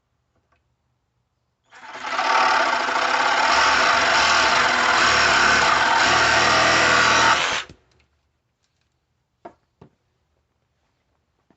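Yunirvana 120V corded reciprocating saw running, starting up about two seconds in, holding a steady buzz for about six seconds, then stopping abruptly. Two short clicks follow near the end.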